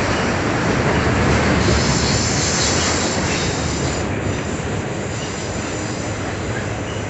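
CSX autorack freight cars rolling past close by: a steady, loud rumble and rattle of wheels on the rails. A high-pitched wheel squeal rises over it for a couple of seconds in the first half.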